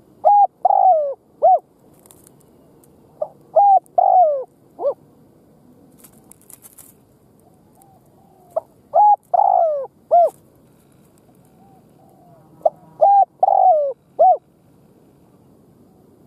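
Caged decoy spotted dove cooing: four phrases of several coos each, one about every four seconds, each with a longer falling note in the middle.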